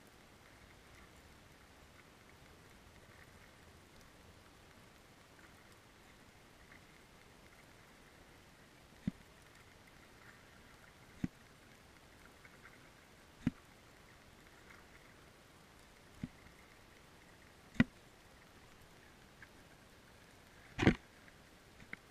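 Underwater ambience: a low steady hiss, broken in the second half by about six sharp clicks or knocks a second or two apart, the loudest one near the end.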